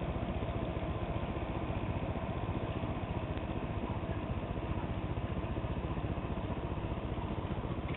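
Small electric fan of a DIY pop-can solar air heater running steadily, blowing warm air out of the vent, with a fast, even flutter in its hum.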